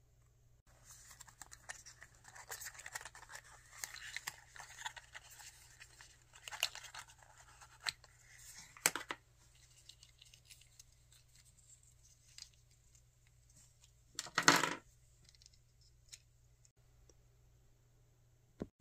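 Small paper and cardboard packaging being handled and torn open, with dense crinkling, scratching and tearing through the first half. There is a louder half-second rustle past the middle and a single small click near the end.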